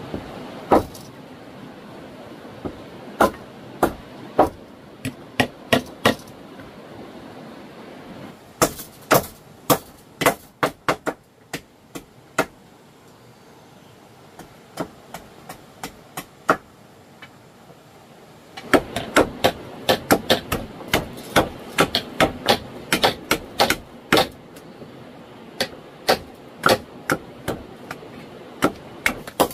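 Repeated sharp blows of a hand tool striking wood, in irregular runs of several strikes with pauses between, over a steady background hiss.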